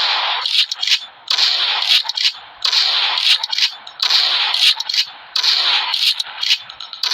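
Pump-action shotgun firing shot after shot, about one every second and a half, each blast trailing off over a second. Sharp metallic clacks come between the shots.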